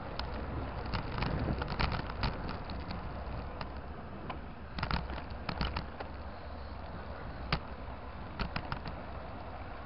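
Wind and road rumble on a camera mounted on a moving bicycle, broken by clusters of sharp rattling clicks, the mount and bike rattling over the uneven asphalt. There is a run of clicks about a second in, another about five seconds in, and a few more near the end.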